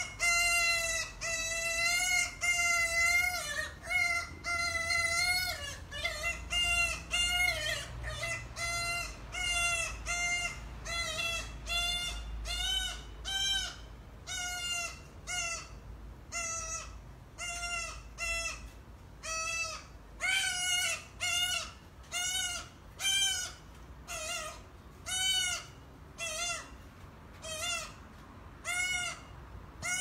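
A bird calling over and over: a few drawn-out calls, then a long run of short, arched calls at about one to two a second.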